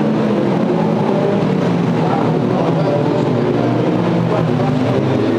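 Formula Renault 2.0 race cars driving past one after another at warm-up pace, their 2.0-litre four-cylinder engines running at moderate revs. Several engines overlap, their pitches rising and falling without a break.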